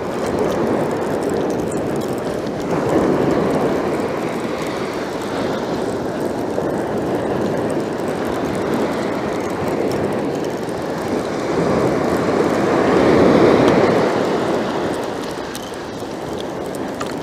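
Sea surf breaking and washing on a sand beach: a steady rushing noise that swells twice, about three seconds in and again near the end.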